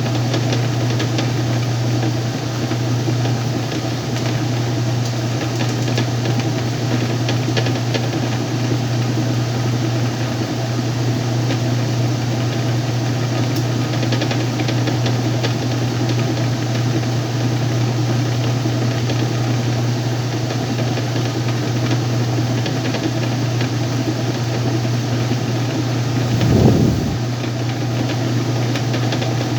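Whirlpool washing machine running in its spin cycle: a steady low motor hum under a broad whirring noise, with a brief louder rumble near the end.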